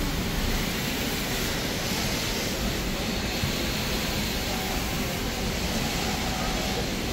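Steady, even rushing noise of a garment factory floor with its machines running.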